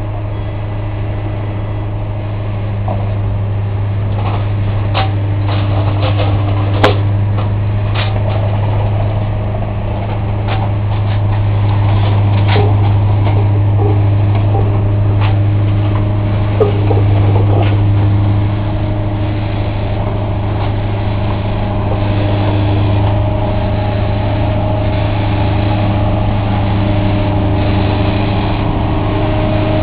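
Diesel engine of a track-renewal machine running steadily at close range, with scattered sharp metallic clicks and clanks from its rail-handling gear and a few brief squeaks about seventeen seconds in.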